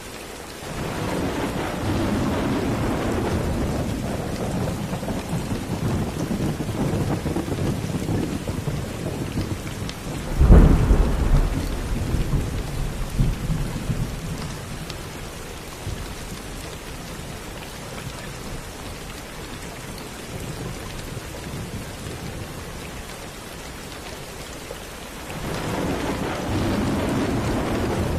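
Steady rain with thunder: a long low rumble rolls in about a second in, a sharp loud thunderclap breaks about ten seconds in and dies away into the rain, and a new rumble builds near the end.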